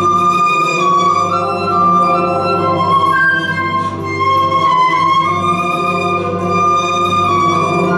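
Concert flute playing a slow melody of long held notes, over a sustained low accompaniment.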